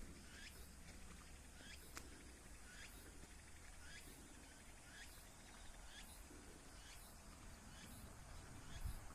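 Faint quiet outdoor ambience with a bird calling repeatedly: short upward-curving notes about once a second. A single click comes about two seconds in, and a low rumble swells near the end.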